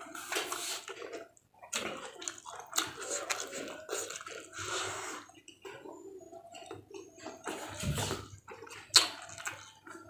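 Close-up eating sounds from a meal of raw vegetables and fried tempeh: wet crunching and chewing in irregular bursts, with short clicks and pauses between bites.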